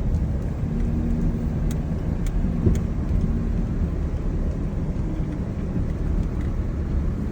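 Diesel truck engine running with a steady low rumble while the truck drives, with a few faint ticks in the first few seconds.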